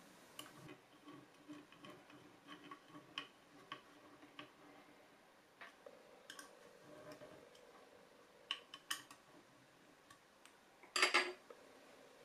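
Small screws being turned into a model car part with a small screwdriver, giving scattered light clicks and ticks, with rustling of wires and parts being handled. A short louder clatter about eleven seconds in as the assembly is moved.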